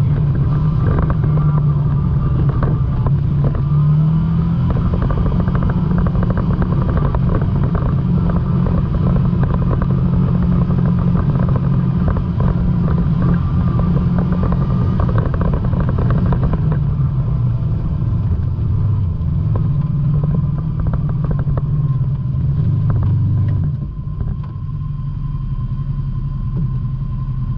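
ATV engine running under way on a rough dirt trail, its steady low drone mixed with rattling from the bumpy, rocky ground. It goes quieter about 24 seconds in.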